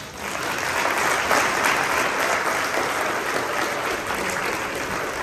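A crowd of guests applauding, swelling over the first second and then going on steadily.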